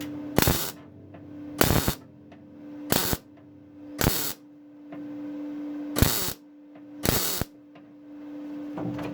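Six short bursts from a workshop power tool, each about a third of a second and spaced a second or two apart, over a steady low hum.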